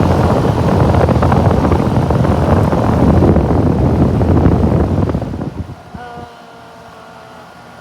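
Loud rushing wind noise buffeting the microphone, starting suddenly and dying away about five seconds in, after which a quieter steady hum remains.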